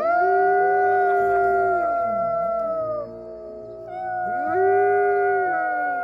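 Wolfdog howling: long, drawn-out howls at several pitches that overlap, each rising into a held note and sliding down at its end. The howling eases about three seconds in and swells again a second or so later.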